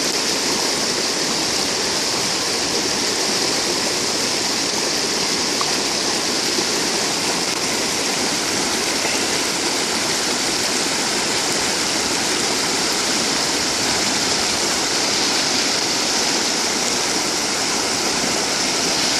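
Mountain stream rushing steadily, a constant even splashing of flowing water.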